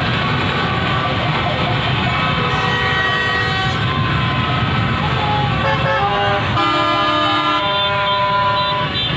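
Many vehicle horns honking at once in celebration, overlapping held toots at different pitches, over the steady rumble of engines and voices of a street crowd.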